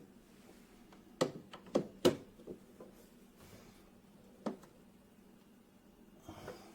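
Sharp knocks and clacks from handling espresso-making gear: three loud ones about a second in, a softer one just after, and a single knock near the middle.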